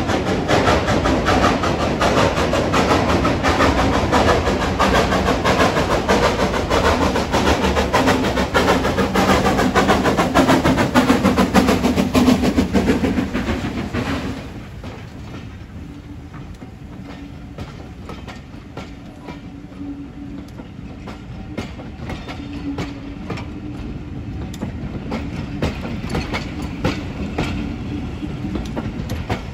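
Lancashire & Yorkshire Railway 0-6-0 saddle-tank steam locomotive working a train of coaches past at close range, loud and dense with steam. About halfway through, as the engine goes by, the sound suddenly drops away, and the coaches roll past with their wheels clicking over the rail joints.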